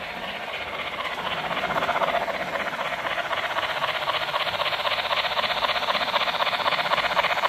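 H0 model train running on the layout's track: a steady hiss with a fast, fine pulse, getting louder over the first couple of seconds and then holding.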